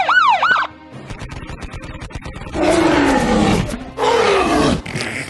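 Dinosaur roar sound effect: two loud roars falling in pitch, one after the other, preceded by a quick wobbling whistle and a fast rattle of clicks.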